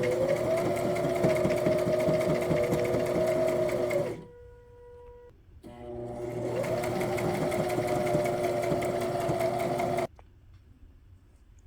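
Home sewing machine stitching a twin-needle seam in two runs of about four seconds each. Each time it starts, the motor's whine rises in pitch as it speeds up, and it stops about four seconds in and again near the end.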